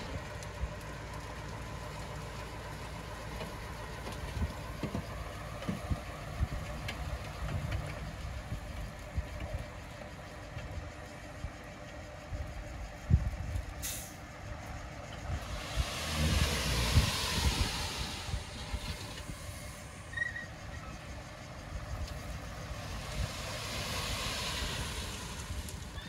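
Heavy diesel earthmoving machinery running with a steady low rumble and scattered knocks. Two longer stretches of hissing come through, about halfway and again near the end.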